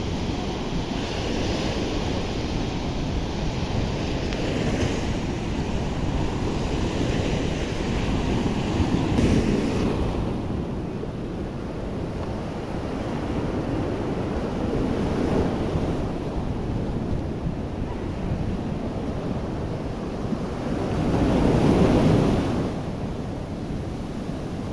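Sea surf breaking and washing up a sandy beach, swelling and fading every few seconds with the biggest wash near the end, with wind buffeting the microphone.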